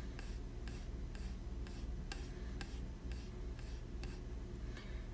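Faint, even ticking, about two ticks a second, over a low steady hum.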